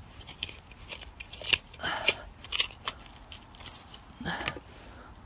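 Irregular crisp crunches and clicks of dry leaves and soil being disturbed close to the microphone, with a low murmured voice about two seconds in.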